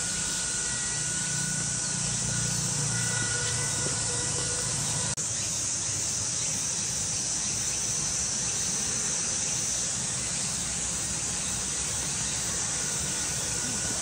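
Steady high-pitched hiss of summer insects, with a faint low rumble underneath. It drops out for an instant about five seconds in.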